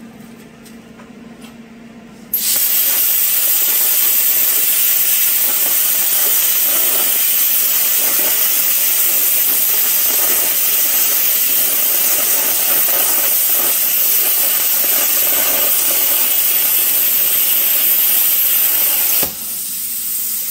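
Lotos LTP8000 plasma cutter cutting quarter-inch steel at 80 amps. The arc starts suddenly about two seconds in with a loud, steady hiss that holds for about seventeen seconds, then cuts off sharply near the end, leaving a quieter hiss.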